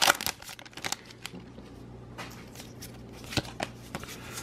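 Pokémon TCG booster pack's foil wrapper crinkling in the hands during about the first second. The cards are then slid out and handled, with a few soft papery flicks.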